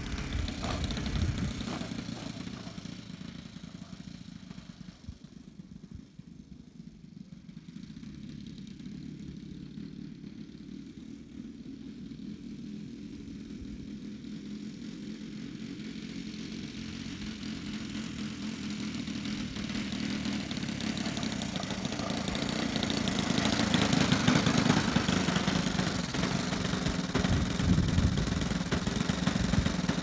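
Saito FG-21 four-stroke gasoline engine of an RC Christen Eagle biplane running at low throttle while the model taxis on grass. It fades a few seconds in, then grows steadily louder as the plane comes closer.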